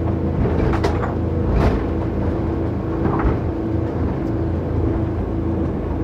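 Twin Volvo Penta IPS500 diesel engines running steadily at high speed, with about three short thuds from the hull crossing wash.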